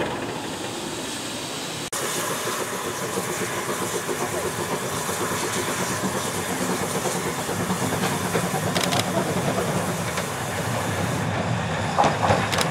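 Standing Hunslet Austerity 0-6-0 saddle tank steam locomotive hissing steady steam from its cylinders. Sharp clicks and clanks of wheels over rail joints come near the end as a small Hudswell Clarke 0-4-0 saddle tank runs in on the next track.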